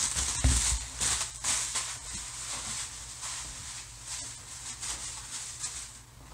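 Plastic bubble wrap crinkling and rustling as it is handled, with a soft thump about half a second in; the rustling is busiest in the first second and a half and grows sparser and fainter after that.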